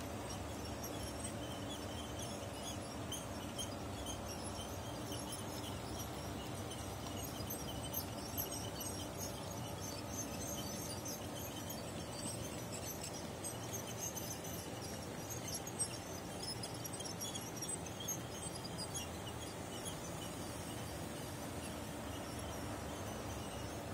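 OO gauge model train running on the layout: a steady motor hum with a few light clicks.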